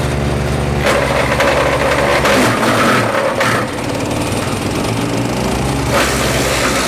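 MechMaxx P4206 wood chipper's gas engine running, then chipping branches from about a second in with a loud crunching rattle. The engine bogs down under the load for a moment in the middle and then picks back up.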